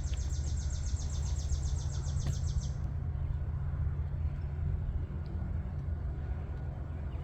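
Wind rumbling on the microphone, with a bird's high, rapid trill of evenly spaced notes over the first three seconds or so.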